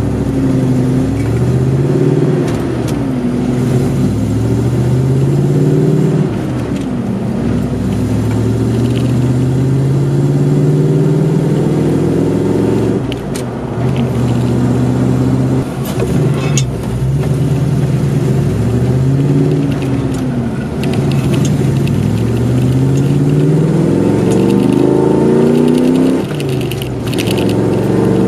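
Ford Bronco's engine and road noise heard from inside the cab while driving. The engine note climbs steadily as it accelerates and falls back several times as gears are changed.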